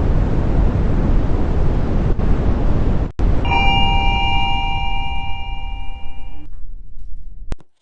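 A steady low rumbling noise, broken by an abrupt cut about three seconds in. Then an electronic chime of two tones held together sounds for about three seconds and stops suddenly, with the rumble going on underneath.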